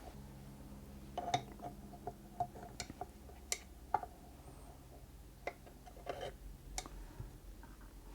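Light, irregular clicks and taps of small metal parts and tools being handled while a linkage is fitted to the underside of a Singer Featherweight 221K sewing machine, over a faint steady low hum.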